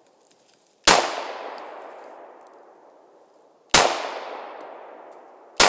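Three shots from a Glock 9mm pistol, a few seconds apart, each with a long echo trailing away. The last shot comes right at the end.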